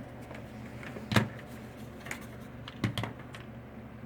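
A few short, sharp clicks and knocks of tools and the circuit board being handled on a workbench, about a second in and again near three seconds, over a steady low electrical hum.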